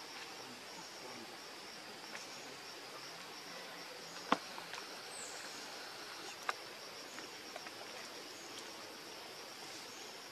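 Steady high-pitched drone of insects, with two sharp clicks about four and six and a half seconds in.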